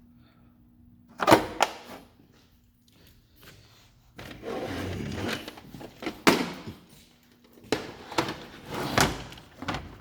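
Tools and tool kits being handled in a metal toolbox drawer: a series of clatters and knocks, with a sliding scrape about four seconds in.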